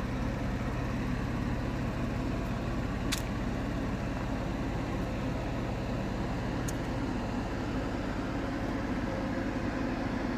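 A motor running at a steady speed with a constant hum, and two faint ticks about three and seven seconds in.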